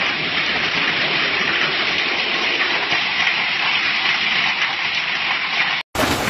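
Heavy storm downpour with water rushing, a loud steady hiss with no distinct strokes. It cuts off abruptly near the end, and after a short gap a different rain sound begins.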